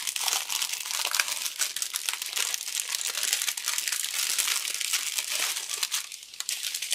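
Plastic packaging crinkling in the hands as a wrapped bundle of small bags of diamond-painting drills is handled and unwrapped, easing off briefly near the end.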